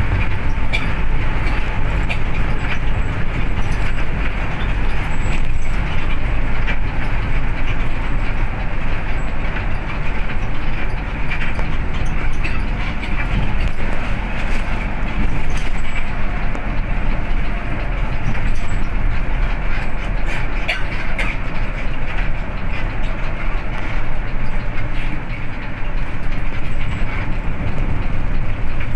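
Steady engine drone and road noise heard inside an intercity coach cruising on a highway, with a few light clicks and rattles now and then.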